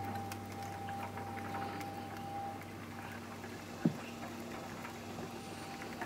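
Budgerigars pecking and hulling seed from a hand, a busy stream of small dry clicks, over a steady low hum. A single low thump about four seconds in.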